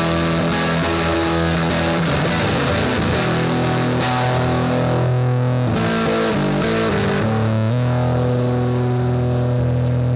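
Electric guitar played hard through a Headrush pedalboard's overdriven amp model, giving a loud, heavily distorted tone. The chords are sustained, with a few quick changes about six to eight seconds in, and it ends ringing on a long held chord.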